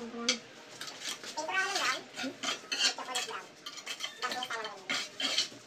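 A steel trowel scraping and clicking as it spreads wet cement paste across the back of a large tile in a run of short strokes.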